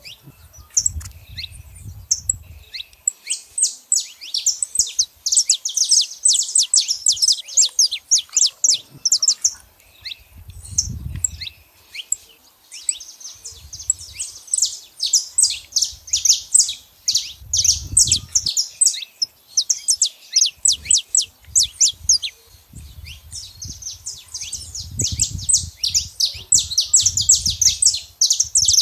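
Saffron finch singing: long phrases of rapid, sharp, high chipping notes, repeated with short pauses between phrases. Intermittent low rumbles sound underneath.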